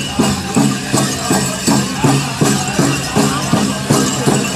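Pow-wow drum group playing a Grand Entry song: a large shared drum struck in an even beat, about two and a half beats a second, under voices singing together.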